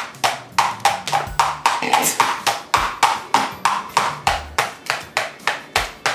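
Plastic mayonnaise bottle shaken upside down over a plastic measuring cup, knocking in a steady rhythm of about three sharp knocks a second.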